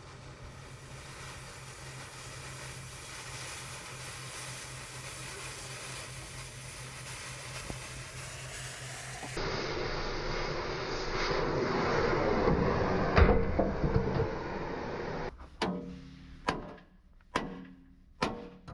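Steady mechanical hum for about nine seconds, then louder machine noise that builds with a heavy knock, followed near the end by a series of about five sharp knocks.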